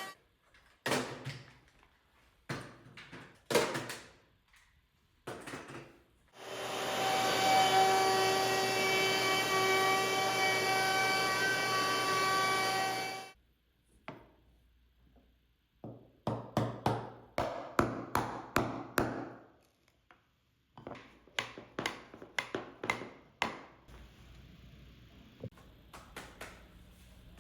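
Woodshop work: wooden knocks and clatters of handling tools and workpieces, broken by a power tool running steadily for about seven seconds in the middle, starting and stopping suddenly, then more quick knocks.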